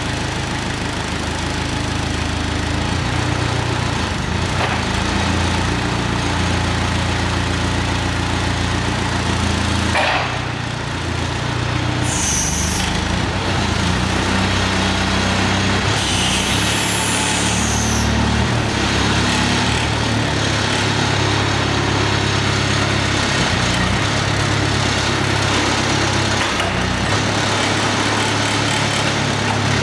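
Diesel engine of a Donkey M13-5K truck-mounted forklift running, its speed rising and falling as the operator works the controls. A sharp knock comes about ten seconds in, and brief high squeals follow a few seconds later.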